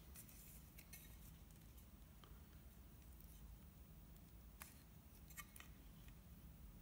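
Near silence, with a few faint ticks and taps as a try square and pencil are handled against a piece of laminated wood.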